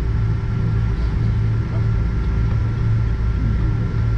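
Cabin noise of a Boeing 777-200ER taxiing on the ground: a steady low rumble from the idling engines and rolling airframe, with a faint steady hum above it.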